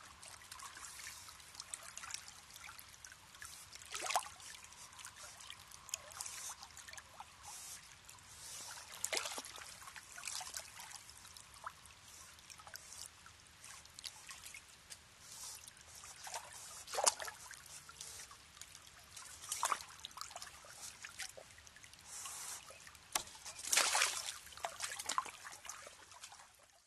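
An otter splashing and sloshing in shallow stream water, with irregular louder splashes over a steady trickle of flowing water.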